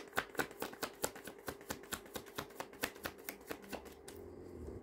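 A deck of tarot cards shuffled by hand: a rapid run of light card clicks, about five a second, that stops near the end.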